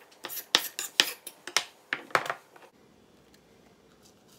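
Chef's knife chopping bell peppers on a wooden cutting board: about a dozen sharp, uneven knocks that stop a little over halfway through.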